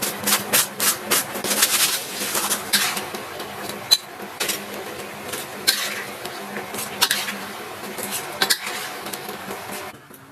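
Metal utensils clinking and scraping against dishes and pots, in irregular sharp clinks over a low steady hum.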